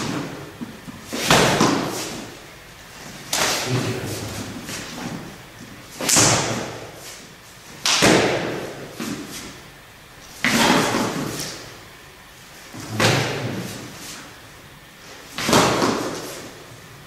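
Seven heavy foot stamps on a hall floor, one every two to three seconds, from Xingyi (Hsing I Chuan) martial-arts strikes. Each stamp is followed by a rush of noise that dies away over about a second.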